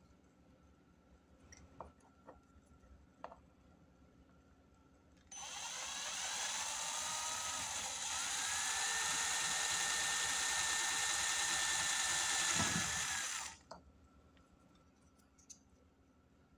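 Cordless drill boring a small hole in a PVC plastic part: the motor starts about five seconds in, its whine climbs in pitch and then holds steady, and it stops abruptly about eight seconds later. Before it, a few faint clicks from handling the part.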